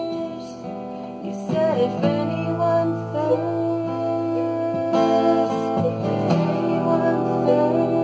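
Acoustic guitar strummed slowly through an E minor, A minor and C chord progression, with a mandolin played alongside.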